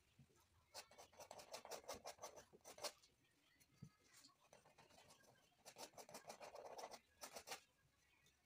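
Paintbrush dabbing and scrubbing paint onto a canvas: two faint runs of quick strokes, one starting about a second in and another around six seconds in.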